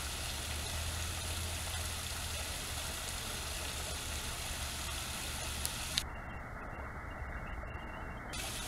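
Steady rush of a small rock waterfall splashing into a pond, under a low steady hum. The sound turns duller about six seconds in.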